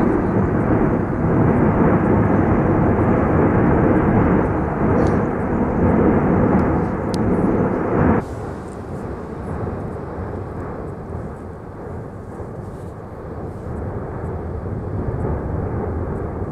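Volcanic vent roaring steadily as it throws up a lava fountain. About eight seconds in, the roar drops suddenly to a quieter level.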